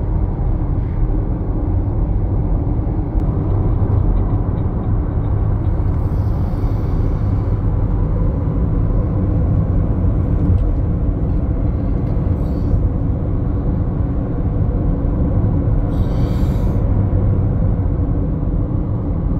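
Steady low road rumble heard inside a car driving at freeway speed: tyre and engine noise, with brief faint hisses about six and sixteen seconds in.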